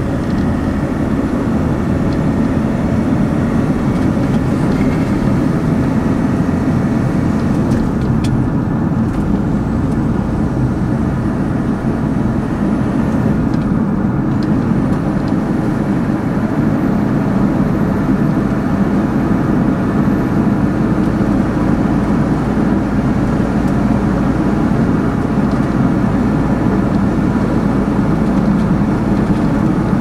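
Steady road and engine noise from inside a moving vehicle's cabin, driving at an even speed along an asphalt road.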